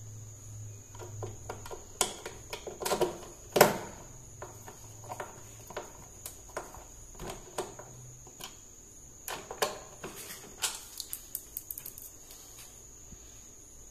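Irregular clicks and knocks of a small screwdriver driving screws and bumping the plastic neck of a TV stand as it is fastened to the TV. The loudest knock comes about three and a half seconds in, over a steady high-pitched tone.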